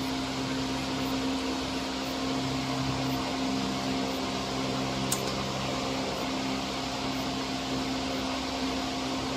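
Desktop jewelry laser welding machine's cooling fans running with a steady hum, with faint ticks about once a second and one sharper tick about five seconds in.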